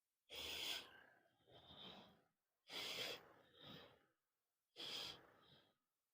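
A person breathing audibly: three breaths about two seconds apart, each a stronger part followed by a softer one.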